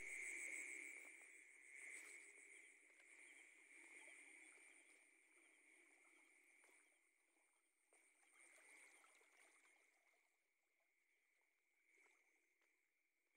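Faint chorus of frogs calling at night: a steady, rapidly pulsing trill, growing fainter, with a few faint clicks.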